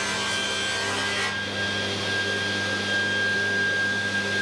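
Table saw running and cutting through an oak board with a steady whine and hum; the cut ends about a second in and the blade spins on freely.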